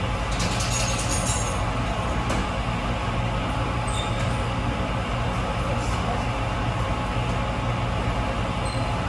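Wascomat Senior W125 35-pound commercial washing machine running mid-cycle: a steady machine noise with a low hum and a brief hiss about a second in.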